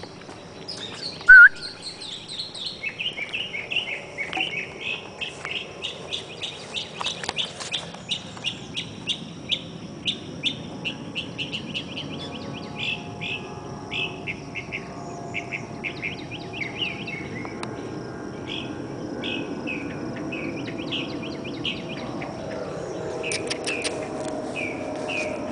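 A songbird singing long runs of quick, repeated chirps, thinning out past the middle and returning briefly near the end, over a steady high cricket trill.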